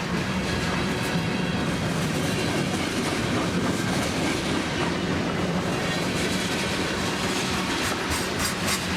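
Freight train cars rolling past: a steady rumble of steel wheels on rail with a hum underneath, and a quick run of sharp clicks near the end as wheels cross a rail joint.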